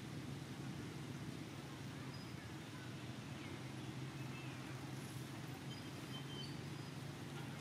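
Outdoor ambience: a steady low hum with a faint even hiss, and a few faint, short high chirps scattered through it.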